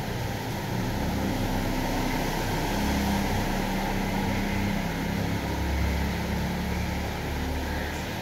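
Steady rain hiss during a thunderstorm, with a low rumble that swells through the middle, typical of distant thunder.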